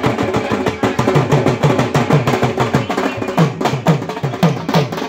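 Drums beaten in a fast, lively rhythm, several strokes a second, the deep strokes each sliding down in pitch.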